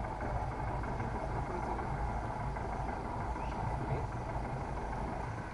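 Jungle ambience: a dense, steady chorus of insects and frogs over a constant low rumble.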